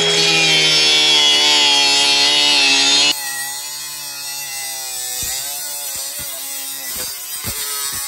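Ridgid angle grinder with a cut-off wheel, running with a loud steady whine. About three seconds in the wheel bites into the steel coin box and the sound turns quieter and rougher, with short dips as it cuts through the metal easily.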